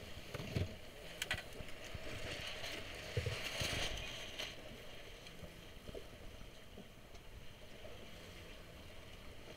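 Choppy water splashing and washing against a small boat's hull, with a few louder irregular splashes in the first four seconds, then a fainter steady wash.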